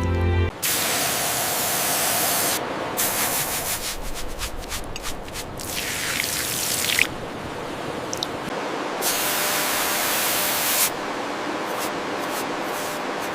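Spray hissing from a nozzle in three bursts, about two seconds, one second and two seconds long, with small clicks and drips between them.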